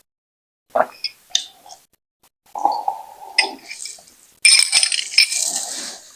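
Close-miked eating and tableware sounds: a few short sharp clinks of dishes in the first couple of seconds, then a denser run of clattering and handling noise that is loudest near the end.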